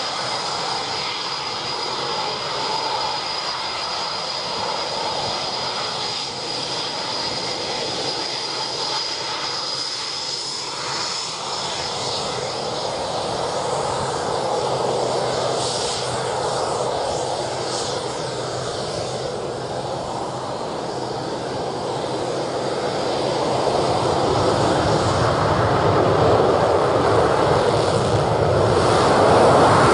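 Eurofighter Typhoon jet engines taxiing: a steady whine and rumble, with a high whistle over the first ten seconds or so, growing louder over the last several seconds.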